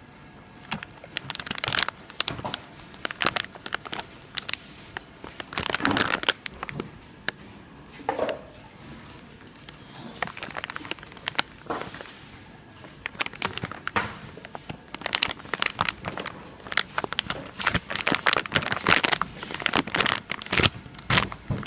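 Plastic wrapping being handled: irregular crinkling and rustling with small crackles and clicks, in uneven handfuls.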